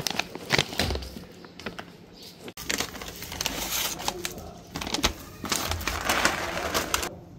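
Plastic cat food bag crinkling with scattered clicks, then dry kibble poured from it into a plastic bowl in two spells of rattling.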